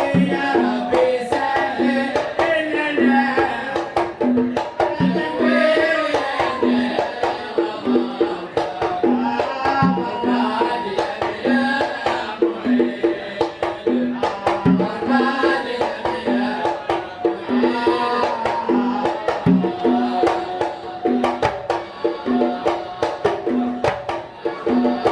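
Devotional song in Kuwaiti sawt style: voices singing over an even hand-drum beat of about two strokes a second, with a deeper drum stroke roughly every five seconds.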